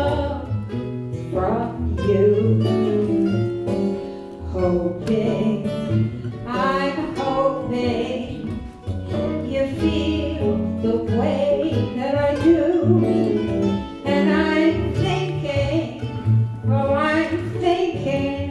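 Live acoustic folk song: acoustic guitars and a mandolin strumming chords, with a voice singing over them.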